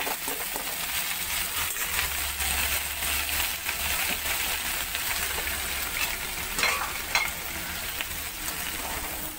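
Kangkong (water spinach) just added to a hot pan of golden-brown garlic, sizzling steadily in the oil, with a couple of brief sharper crackles about two thirds of the way in.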